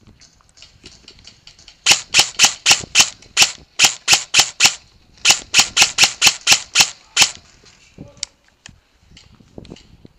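VFC HK416 airsoft electric gun (AEG) firing rapid semi-automatic shots, about four a second. The shots come in two strings of about ten, with a brief pause between them.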